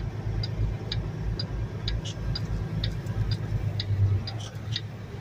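Semi-truck's diesel engine rumbling low at slow speed, heard inside the cab, with a steady ticking about twice a second over it.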